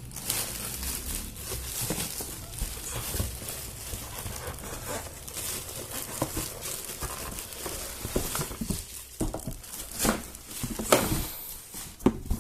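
Packaging being handled while an air fryer is unboxed: irregular rustling and crinkling with scattered small knocks, louder around ten and eleven seconds in.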